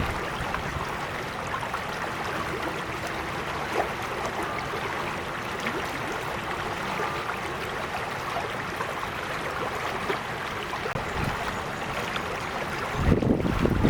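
Gentle creek flowing and babbling steadily, with a brief low rumble near the end.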